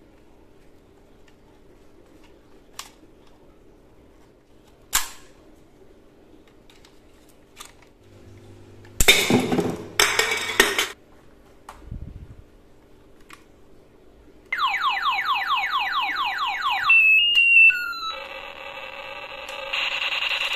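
Plastic clicks as a toy gun is handled, then two loud noisy bursts about nine seconds in as a green toy gun is fired at cans, followed by a low thud. From about fourteen seconds, a battery-powered toy revolver plays electronic gunfire sound effects: first a fast run of repeating falling zaps, then a steady alarm-like electronic tone.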